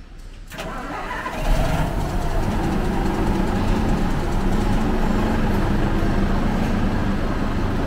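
Heavy truck tractor's diesel engine being started: the starter cranks for about a second, the engine catches with a sudden rise in level, then settles into a steady idle.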